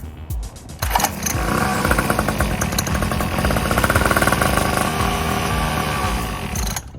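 Mini dirt bike's small gasoline engine catching on a start attempt and running with a fast, even popping beat for about six seconds, then cutting out suddenly near the end: a first start on a newly assembled bike that does not keep running.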